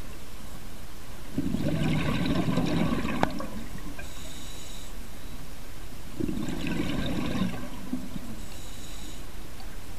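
Scuba diver breathing through a regulator underwater: two exhalations about five seconds apart, each a bubbling burst lasting a second or two, each followed by a fainter hiss.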